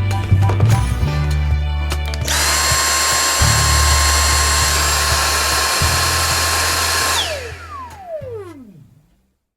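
Dyson V6 Trigger+ handheld vacuum cleaner switched on: its motor starts abruptly with a rush of air and a steady high whine, runs for about five seconds, then is released and spins down, its whine falling in pitch as it fades out. Background music plays underneath.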